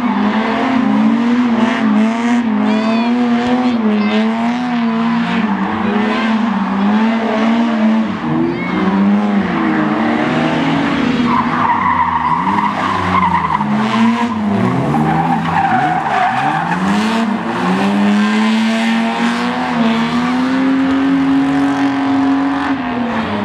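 Cars drifting: engines held high in the revs, the pitch wavering up and down as the throttle is worked, with tyres squealing and skidding. A long, high tyre squeal runs for about three seconds just before the middle, and the revs drop and climb sharply several times in the second half.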